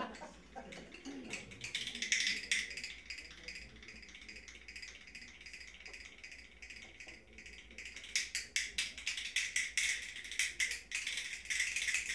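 A small hand-held rattle shaken in quick, rustling strokes as solo percussion, growing louder and sharper about eight seconds in.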